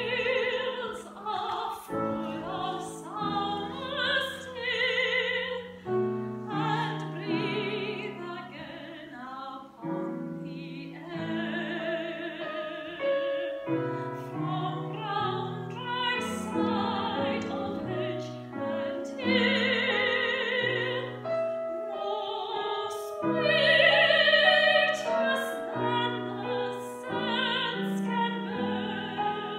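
A woman singing classical repertoire in an operatic style with vibrato, accompanied by a Yamaha grand piano. The voice swells loudest about three-quarters of the way through.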